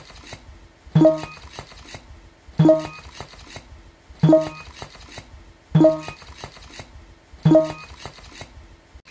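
A short ringing clink repeated five times at even spacing, about every one and a half seconds, each struck sharply and dying away quickly.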